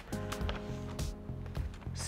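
Background music: held chords over a steady low beat.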